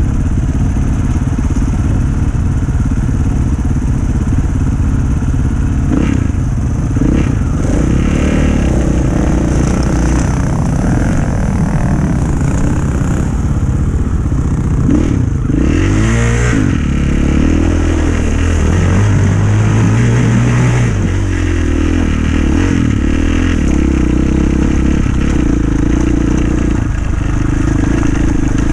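Off-road rally motorcycle engine running under the rider, heard from a helmet-mounted camera, with the revs changing and rising around the middle as the bike rides through a shallow river crossing and over loose stones.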